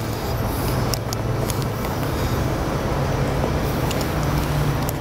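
A steady low motor hum with a few faint clicks.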